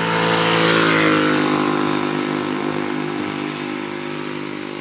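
Honda GX160 single-cylinder four-stroke engine of a homemade go-kart driving past at speed. It is loudest about a second in, where its pitch drops as it goes by, then fades steadily as the kart drives away.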